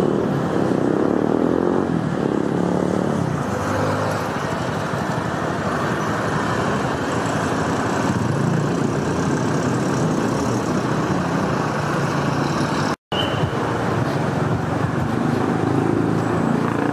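Busy street traffic: cars and motorbikes running and passing in a steady mix of engine and tyre noise, with a momentary break in the sound about three-quarters of the way through.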